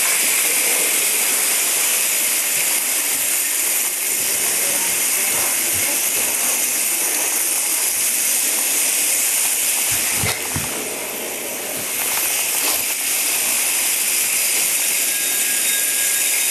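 A steady hissing buzz from the vibration motors of many Hexbug Bobble Bots skittering together over a hard kitchen floor. It dips slightly for a couple of seconds, with a few low knocks, about ten seconds in.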